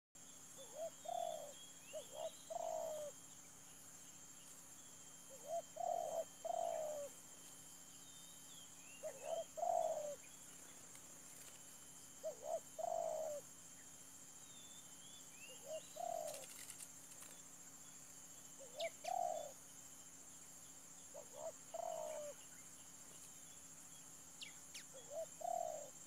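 Spotted dove (tekukur) cooing: a short phrase of two or three coo notes, repeated about every three seconds. Behind it runs a steady high insect drone, with faint chirps from small birds.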